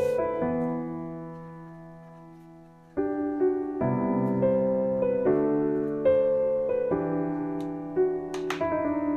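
Background piano music playing slow, sustained chords. The first chord dies away over about three seconds before the playing picks up again.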